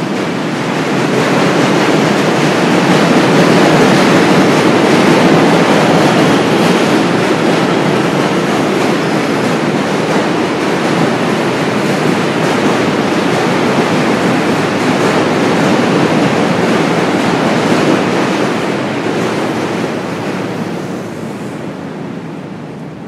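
A loud, steady rumbling roar of a passing vehicle in a city street. It builds over the first second or two, holds for about eighteen seconds, then fades away near the end.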